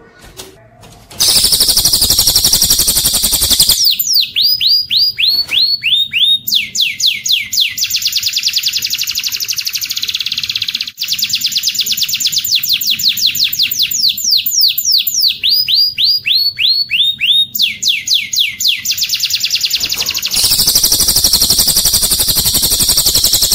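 Songbird recording for tutoring caged birds: a cililin's song joined to a domestic canary's song. Loud, very fast high trills begin about a second in and return near the end, with runs of falling whistled notes, about three to four a second, in between.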